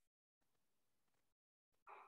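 Near silence: faint room hiss with stretches of dead quiet.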